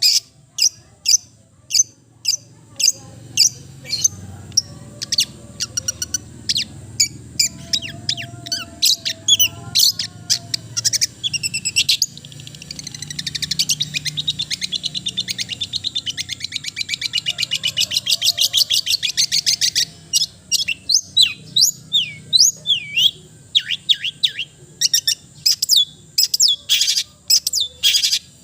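Long-tailed shrike (cendet) singing: a rapid run of sharp chips, then about halfway through a fast, even rattling trill lasting several seconds, then varied short whistled notes and chirps.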